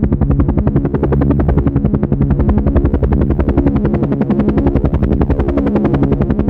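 Helicopter running steadily, its rotor giving a rapid, even chop with a low drone of engine tones beneath.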